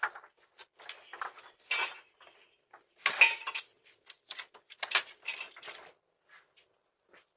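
Irregular clattering and rattling of hard objects, a quick run of clicks and knocks that is loudest about three seconds in and dies away after about six seconds.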